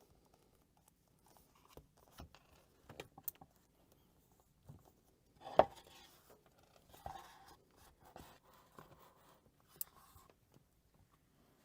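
A freshly glued book being set into a press: scattered knocks, scrapes and sharp clicks of handling on a work surface, with one louder thump about halfway through.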